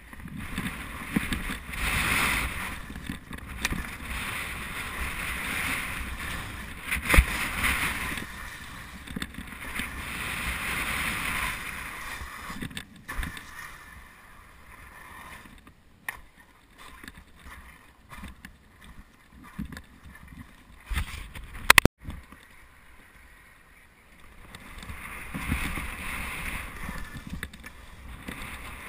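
Skis sliding and scraping over an artificial dry-slope surface, a hiss that swells and fades with the turns over a low rumble, with two sharp knocks, one about seven seconds in and a louder one near twenty-two seconds.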